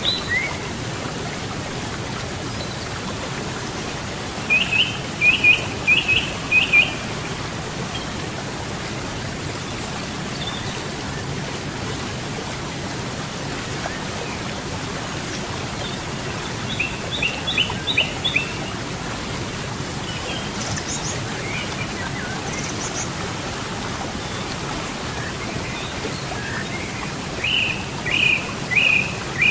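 Steady rush of river water, with a songbird singing a short phrase of four or five quick repeated notes three times: about 4 seconds in, around 17 seconds and near the end. A few faint, higher chirps come in between.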